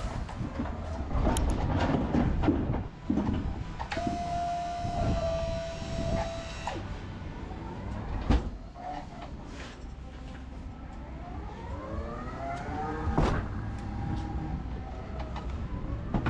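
Electric pallet truck working a pallet in and out of a truck's box body: its motor gives a steady whine for a few seconds, then later a whine that rises and falls as it drives. Knocks and rattles of the jack and pallet run over the steel floor and tail lift throughout.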